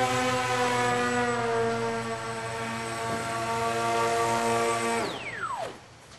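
Electric motor and propeller of a small foam RC model jet running at steady throttle, a whine with a slight wavering in pitch. About five seconds in the throttle is cut and the whine falls steeply in pitch as the motor spins down.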